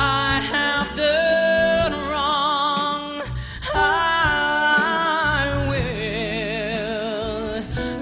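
A woman singing live into a microphone over band accompaniment: a wordless, melismatic vocal line that slides between held notes, with a strong wavering vibrato on the long notes near the end.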